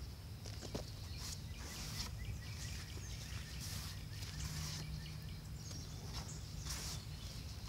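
Gloved hand raking and scooping through loose potting soil mixed with perlite: a series of short, soft rustling swishes over a steady low outdoor rumble.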